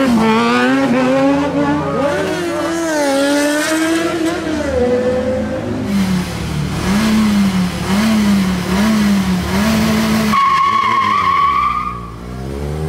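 Yamaha XJ6 inline-four engine revving up and down through a wheelie. Then a sport bike's engine is blipped in quick repeated revs, about one a second. Near the end a steady high-pitched tone sounds for about two seconds.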